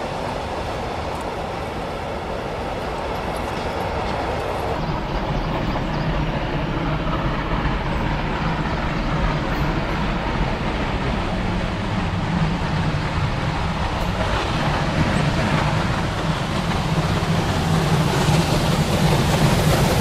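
Class 58 (Baden G 12) three-cylinder 2-10-0 steam locomotive working hard with a freight train: a continuous rush of exhaust and running gear. The sound changes about five seconds in, then grows steadily louder as the engine draws near.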